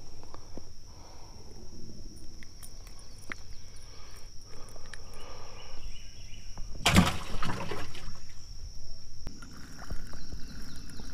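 A steady high insect drone over light handling noises and small clicks. One short, loud, noisy rush about seven seconds in stands out as the loudest sound.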